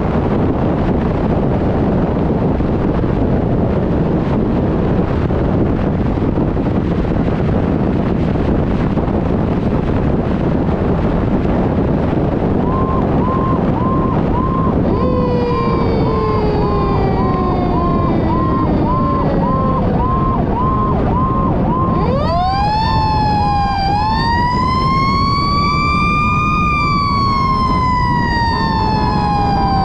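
Wind and road noise on a fire engine's bumper-mounted microphone. About halfway through, an electronic siren starts pulsing at roughly one and a half beats a second while a mechanical siren coasts slowly down in pitch. About three-quarters in, the mechanical siren spins up again into a rising wail, then winds slowly down.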